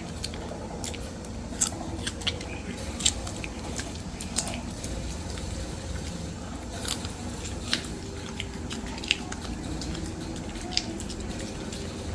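A dog chewing a raw carrot: irregular sharp crunches, roughly one a second, with wetter chewing between them.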